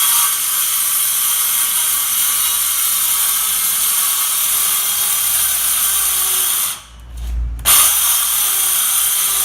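Ryobi cordless circular saw cutting along a guide through a countertop board, a loud steady cutting noise. It stops about seven seconds in, then starts again a moment later for a second short cut.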